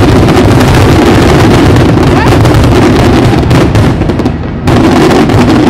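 Aerial fireworks going off in a rapid, continuous barrage of bursts, very loud, with a brief lull about four seconds in.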